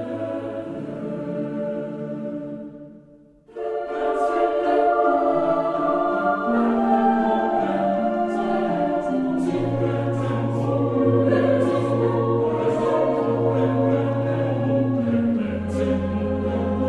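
Background music: one piece fades out about three seconds in, and a new piece starts right after with held chords, a bass line and light ticking percussion.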